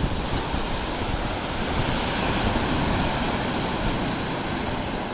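Steady rush of ocean surf, with a low rumble of wind on the microphone.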